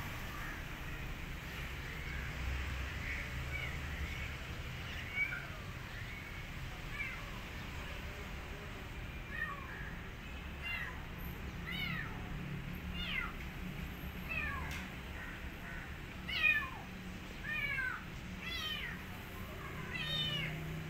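Kitten meowing over and over, short calls that fall in pitch, faint at first and coming about once a second from about halfway on.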